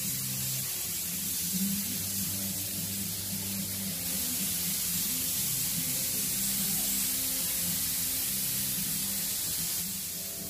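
Air-fed paint spray gun hissing steadily as it sprays mixed two-part paint. The hiss eases off near the end.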